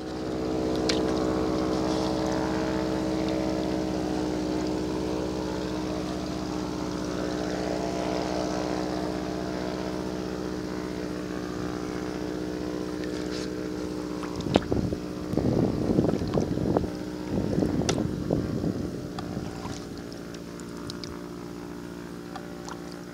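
Motorboat engine running with a steady, even drone, slowly fading, with a few seconds of louder rough noise about two thirds of the way in.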